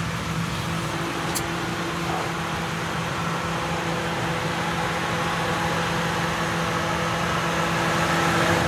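1997 Lincoln Town Car's 4.6-liter V8 idling, a steady hum heard from outside the car that grows slightly louder toward the end.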